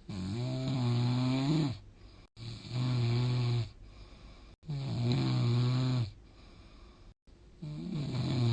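A sleeping person snoring: four long, low-pitched, buzzing snores, one about every two and a half seconds, with quiet breaths between them.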